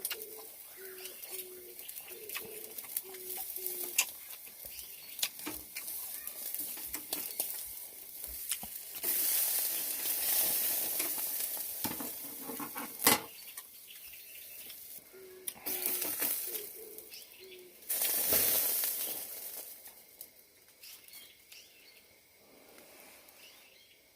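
Hissing in bursts of a few seconds, like food sizzling, with scattered sharp clicks and knocks. A bird calls in a run of short, low, evenly spaced notes near the start and again just after the midpoint.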